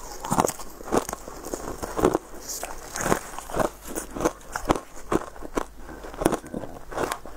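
A person biting and chewing pieces of hard chocolate: a string of crisp crunches, about two a second and uneven.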